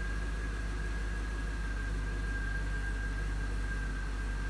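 The 6.0-litre V8 of a 2002 GMC Sierra idling steadily, heard from inside the cab, with a thin steady high whine over the low hum.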